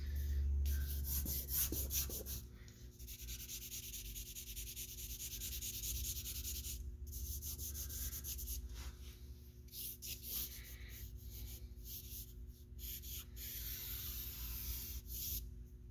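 Vine charcoal scratching and rubbing across drawing paper in short, irregular strokes with brief pauses. A low rumble sounds in the first couple of seconds.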